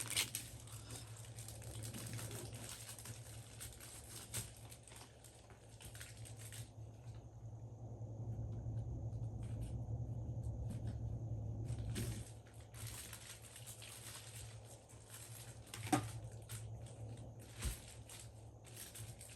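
Faint rustling and light clicking of paper planners and stationery being handled, over a steady low hum, with two sharper taps near the end.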